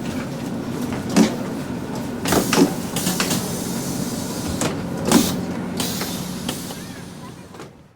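Ride inside a city bus: the engine runs with a steady low hum, broken by several sharp clatters and knocks and a brief hiss near the end. The whole sound fades out over the last two seconds.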